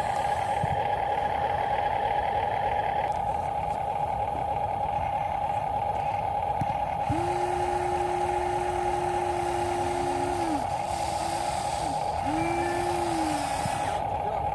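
Radio-controlled model construction vehicles running with a steady electric whine. About seven seconds in, a lower tone swells up, holds for about three seconds and dies away, then comes twice more briefly.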